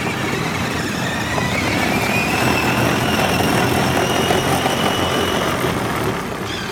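Electric drive motors and gearboxes of a Power Wheels Jeep running on an 18-volt battery pack, whining as it drives, with the wheels rumbling over the ground. The whine rises in pitch over the first few seconds as it picks up speed, holds, then fades near the end.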